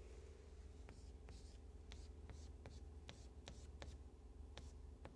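Chalk tapping and scratching on a chalkboard as letters are written by hand: about ten faint short taps between about one and five seconds in, over a steady low hum.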